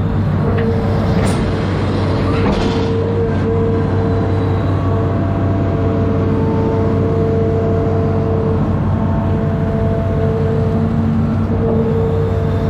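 Amphibious excavator's diesel engine running steadily, with a steady whine over it. There are a few short clanks in the first three seconds.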